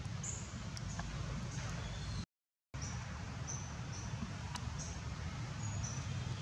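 Outdoor ambience: a steady low rumble with short, high-pitched chirps about once a second. The sound drops out completely for a moment just over two seconds in.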